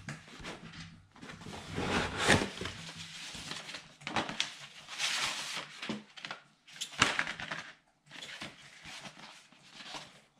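Cardboard and paper packing being handled and pulled out of a large cardboard box: rustling and scraping in uneven bursts with sharp crinkles, loudest about two seconds in and again about seven seconds in.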